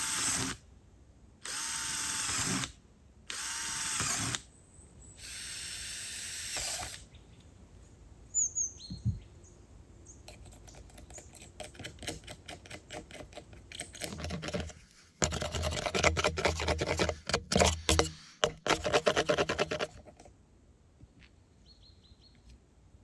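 Cordless drill driving screws in several short runs of a second or so each in the first seven seconds, installing a wooden door. Later comes a louder spell of rattling and knocking.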